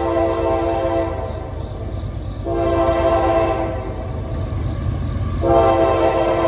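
Locomotive air horn sounding in separate blasts: one ending about a second in, another from about two and a half to four seconds, and a third starting near the end, over the steady low rumble of the passing train.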